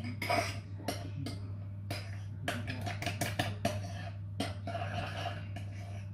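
Metal spoon stirring thick cocktail sauce in a plastic tub, clicking and scraping against the sides several times a second at an uneven pace, over a steady low hum.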